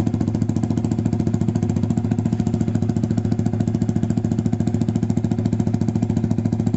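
Motorcycle engine idling through an aftermarket SC Project-style titanium slip-on exhaust with its valve open, a steady, even run of rapid exhaust pulses. The note is loud and bassy.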